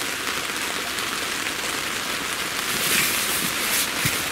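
Steady rain falling on a tent's fabric, heard from inside as an even hiss. Some rustling of a foam sleeping mat being folded comes in over it in the second half.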